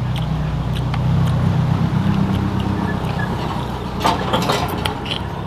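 A low, steady motor drone that swells a second or two in and then eases. Over it come light clicks as blood cockle shells are picked from the tray, and a short burst of sharp clicking, smacking eating noises about four seconds in as a cockle is eaten by hand.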